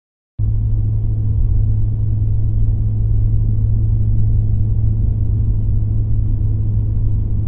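Car's engine and road noise heard from inside the cabin through a dashcam microphone: a steady low rumble with a constant hum, cutting in abruptly about half a second in.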